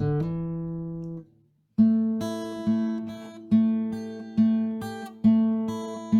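Acoustic guitar music. A chord rings and fades to a brief silence about a second and a half in, then plucked chords follow at a steady pace of about one a second.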